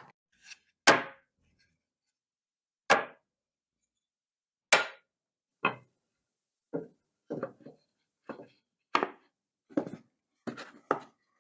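A series of sharp wooden knocks and clacks as workshop pieces and tools are handled on a workbench: three loud ones about two seconds apart, then lighter, quicker knocks in the second half.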